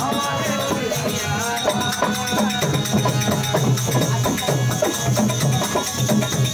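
Bhajan music: a harmonium holds its notes under a fast, even rhythm of dholak drum strokes and hand percussion.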